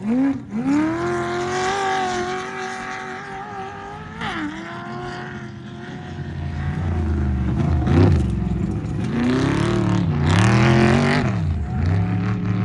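Off-road race truck engine revving hard. Its pitch climbs near the start and holds fairly steady, then rises and falls several times as the throttle is worked, with a burst of rushing noise about ten seconds in.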